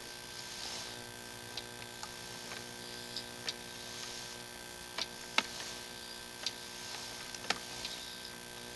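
Irregular sharp clicks and ticks as a sewer inspection camera's push cable is pulled back through the drain line, over a faint steady electrical hum from the camera equipment.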